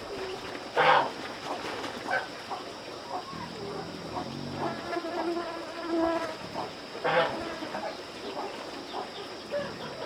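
Steady high-pitched drone of insects. A short loud sound comes about a second in and another about seven seconds in, and a pitched call is heard around the middle.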